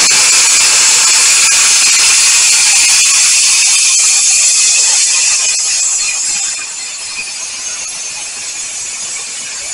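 Compressed-air upholstery spray gun spraying adhesive in a loud, steady hiss. About six and a half seconds in, the spraying stops and the hiss drops to a much quieter one.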